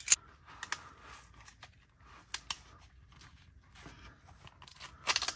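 Hinged metal handcuffs being pushed into a tight-fitting basket-weave handcuff pouch: scattered sharp metal clicks and rattles with faint rubbing of the pouch material, and a quick run of clicks near the end.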